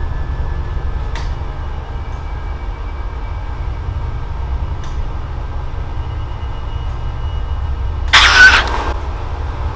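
A steady deep rumble, with two faint clicks and a sudden loud, shrill burst about eight seconds in.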